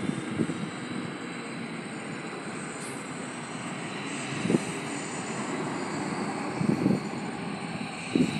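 Distant jet aircraft engine noise, a steady rush that grows a little stronger and higher about halfway through, with a few short low bumps.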